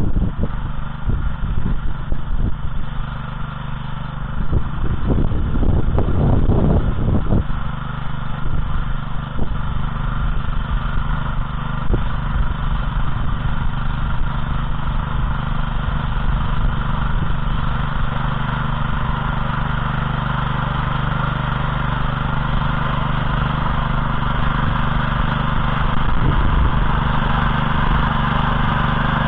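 Oka motoblock's single-cylinder petrol engine running steadily under load as the walk-behind tiller cultivates soil, growing louder near the end as it comes closer. A few seconds of low rumble about six seconds in.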